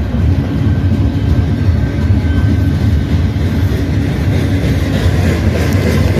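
Long CN freight train rolling past with a steady, loud rumble of wheels on the rails.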